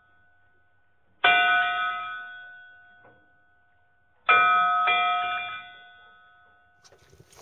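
A bell struck twice, about three seconds apart, each stroke ringing out and fading away; the second stroke has a quick extra strike just after it.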